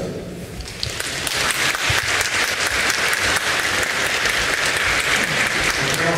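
Audience applauding, a dense clapping that starts about a second in.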